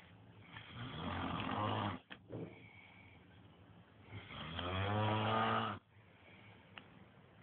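A sleeping man snoring: two long snores on the in-breath, about three and a half seconds apart, the second with a stronger buzzing pitch, with quieter breathing between them.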